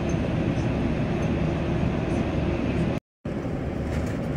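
Steady, deep airliner cabin noise in flight, the drone of engines and rushing air, broken by a short dead-silent gap about three seconds in.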